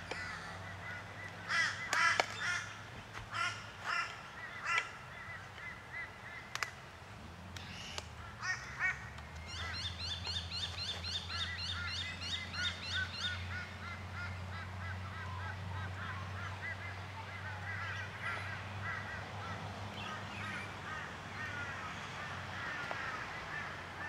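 Birds calling repeatedly, including crow-like cawing and a run of rapid chattering notes. A sharp crack comes about six or seven seconds in as the glued hive boxes are prised apart, and a low steady hum runs through the middle.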